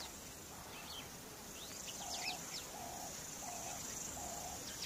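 Dry-bush ambience: a steady high insect buzz with scattered short bird chirps. From about two seconds in, a lower call repeats four times at even intervals.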